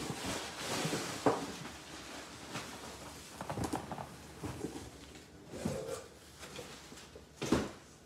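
Cardboard rustling and scraping as a heavy boxed cast iron Dutch oven is worked out of a shipping carton, with scattered knocks. A louder thump near the end as the box is set down on the counter.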